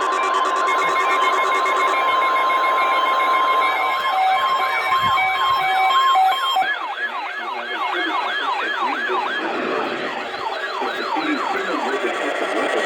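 Emergency alert tones played over a radio: a steady high alert tone, then from about four seconds in a warbling siren-like tone sweeping rapidly up and down, two to three times a second, with short beeps alongside it, fading out near the end.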